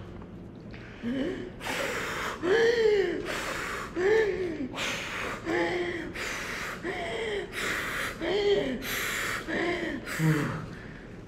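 A child voicing the wolf, huffing and puffing into the microphone: about seven forceful blows of breath, each followed by a short strained gasp, starting about a second in.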